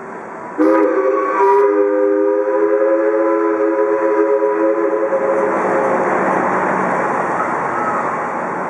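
Paddle steamer's steam whistle sounding one long blast of several notes at once, like a chord, for about five seconds. It starts suddenly about half a second in, and a further note joins about a second in.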